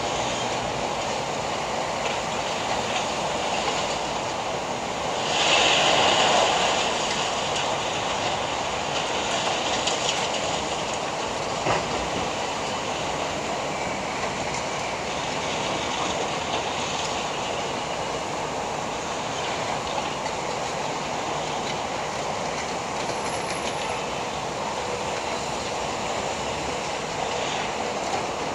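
Distant demolition work: an excavator breaking down a concrete apartment building, a steady noise that grows louder for a couple of seconds about five seconds in.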